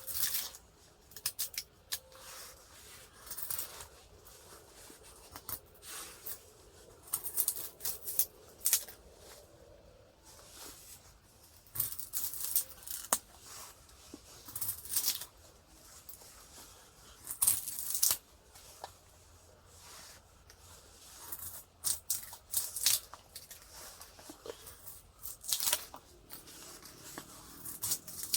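Irregular bursts of rustling, crinkling and scraping, the sound of things being handled close to the microphone.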